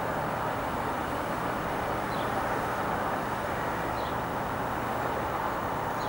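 Steady wash of city traffic noise, an even rumble and hiss with no single vehicle standing out. A few faint, short, high chirps come through it, roughly every two seconds.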